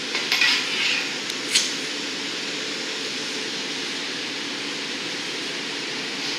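Steady roar of a glassblowing studio's furnace and glory hole burners. A brief scraping hiss and a single sharp click come in the first two seconds as the blowpipe is handled.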